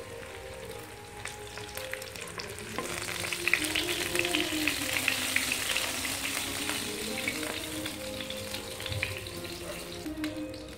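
Oil sizzling and crackling in a frying pan, growing louder about three seconds in, over quiet background music.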